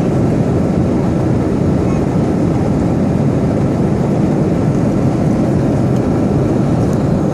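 Steady, even drone of airliner cabin noise in flight, strongest in the low range.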